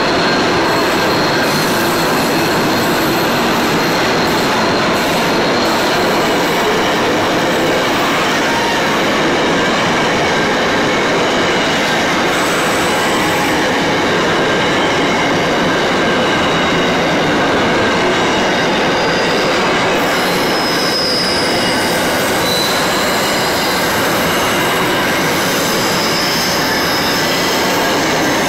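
Container wagons of a Pacific National intermodal freight train rolling steadily past at track level: a continuous loud rumble of wheels on rail, with a thin high wheel squeal coming and going.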